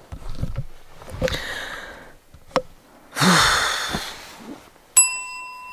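A woman waking in bed, moving about with soft rustles and thumps, then letting out a long drawn-out sigh about three seconds in. A steady ringing tone starts sharply near the end.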